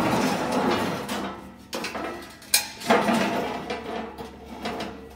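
Halves of a cross-cut sheet-steel grain valve being pulled apart and slid across a steel table: rough metal scraping and grinding, with two sharp clanks about two and a half seconds in, a moment apart.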